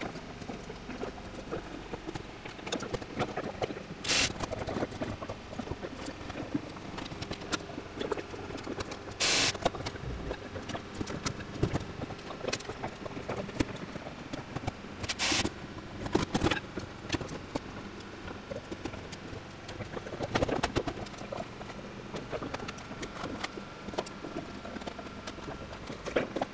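Hand work on a fiberglass car body: scattered clicks and knocks of tools and fasteners being handled against the shell, with three brief, louder bursts of noise about 4, 9 and 15 seconds in.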